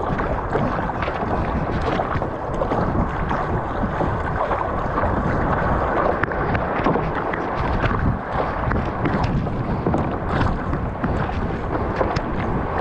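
Wind buffeting the microphone over rushing sea water around a kayak paddling in through small surf, with a few sharp knocks or splashes along the way.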